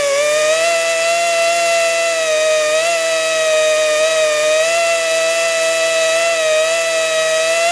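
Compact right-angle drill running at a steady high whine, its pitch dipping slightly now and then as a small needle-tip bit cuts into a broken steel exhaust manifold stud held in a vise.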